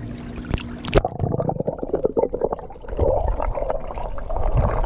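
Swimming pool water churned by small, fast flutter kicks, with splashes and gurgling bubbles; about a second in the sound turns muffled, heard from below the surface.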